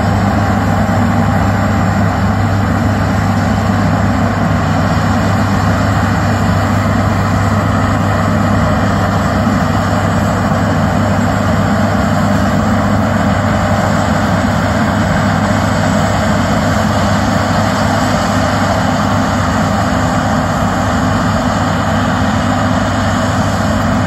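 John Deere S790 combine harvester running steadily as it harvests wheat: an even, unbroken engine and threshing drone with a constant low hum.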